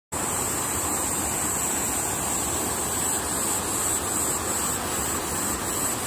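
Late hairy cicadas (Suisha coreana), many at once, singing in a high, steady chorus; about halfway through the song takes on an even pulsing beat of roughly two a second.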